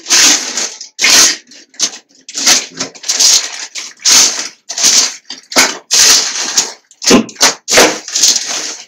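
Thin plastic carry bag crinkling and rustling loudly as it is handled and pulled open, in a dozen or so separate bursts of crackle.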